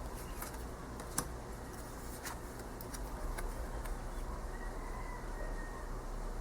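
Tarot cards being handled and turned over: a few light clicks and taps of card stock, the sharpest a little over a second in, over a steady low hum of room noise.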